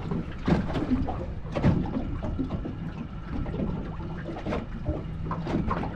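Water lapping and trickling against the hull of a small aluminium boat, with a steady low hum underneath and a few short knocks about half a second and nearly two seconds in.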